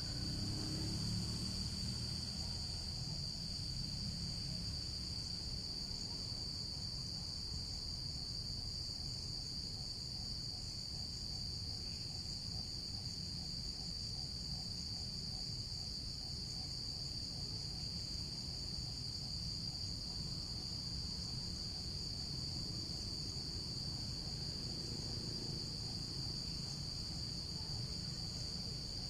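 A steady chorus of crickets, a continuous high-pitched trill that does not let up, over a low background rumble.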